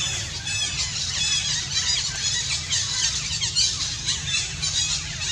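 Infant long-tailed macaque screaming: a rapid run of shrill, high squeals, several a second, falling in pitch, without a break.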